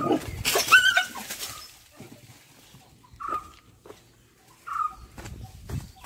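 A dog whimpering in short high cries about every second and a half, with a louder, rougher outburst in the first second or so.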